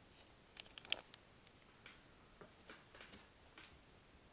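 Near silence: room tone with a few faint, scattered clicks and ticks, the clearest about a second in.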